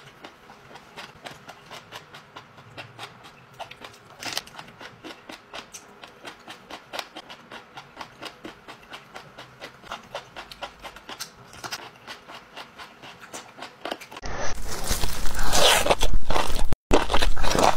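Jellyfish being chewed close to a clip-on microphone: a fast, steady run of crisp crunching clicks. About fourteen seconds in, the sound jumps to much louder, wetter biting and chewing.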